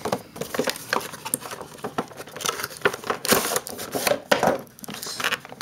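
Cardboard toy box and its plastic packaging being handled and opened by hand: an irregular run of scrapes, rustles and clicks.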